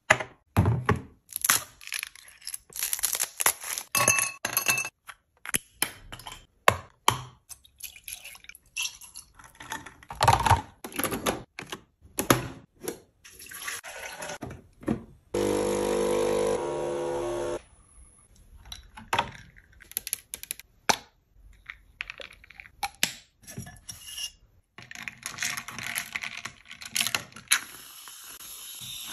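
Sounds of making iced coffee: clicks and clinks of a ribbed drinking glass and ice, water poured into a capsule coffee machine's reservoir, and the machine's pump buzzing steadily for about two seconds halfway through. Near the end, liquid is poured over ice in the glass.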